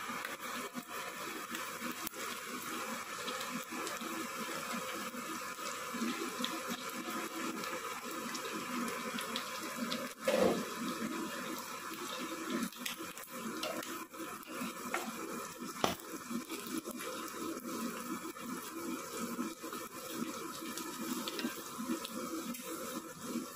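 Pork belly frying in its own rendered fat in a pan, a steady sizzle with scattered small crackles and pops. There are a couple of sharper knocks, one about ten seconds in and another a few seconds later.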